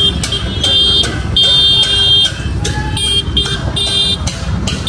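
A high electronic beeping tone sounding in irregular on-and-off pulses, one held for about a second, over a steady low rumble like traffic.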